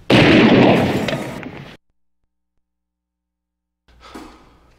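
A sudden loud blast that dies away over about a second and a half and is cut off abruptly, followed by about two seconds of dead silence and then faint room tone.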